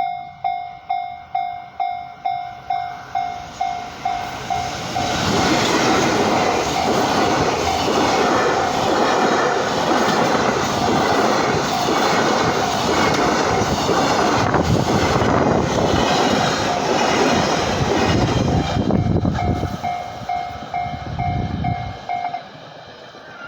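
Japanese level-crossing warning bell ringing, a pulsing tone about twice a second. About five seconds in a train passes over the crossing, loudly drowning the bell for some fifteen seconds; the bell is heard again after it and stops near the end.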